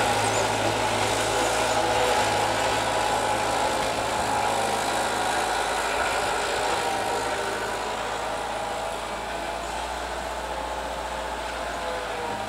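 Engine of a Bobcat 743 skid-steer loader running steadily while the machine pushes snow with its bucket and lifts it.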